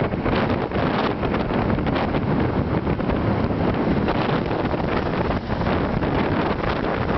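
Wind rushing over the microphone of a moving motorbike, steady and unbroken.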